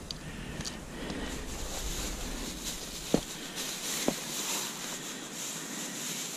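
Steady outdoor hiss of wind on the microphone, with two short, light knocks about three and four seconds in.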